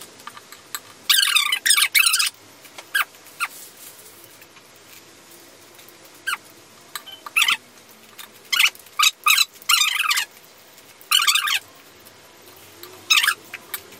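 Close-miked chewing of crunchy chatpate (puffed-rice snack mix) with noodles: loud crisp crunching bursts with pauses between, a few at a time.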